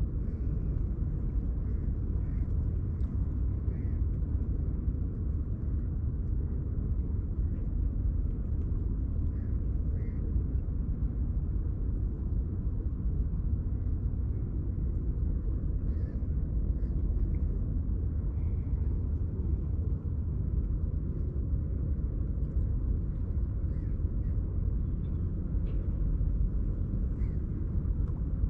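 Steady low rumble with short, faint bird calls scattered through it, crows cawing among them.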